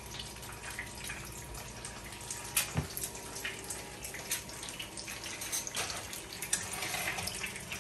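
Eggs frying in oil in a pan on the stove: a steady sizzle with scattered crackles and pops. A single knock about three seconds in is the loudest sound.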